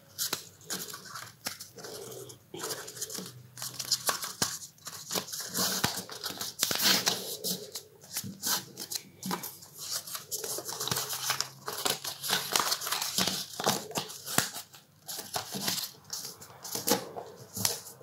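Coloured paper rustling and crinkling in short, irregular scrapes as a strip is folded by hand into an accordion and its creases pressed flat.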